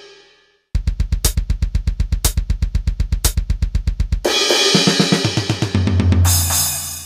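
Programmed metal drums from a beat made in FL Studio: after a brief silence, a fast, even double-kick run at about eleven hits a second with cymbal crashes roughly once a second. It cuts off just past the halfway point into a sustained low distorted chord that rings and fades out.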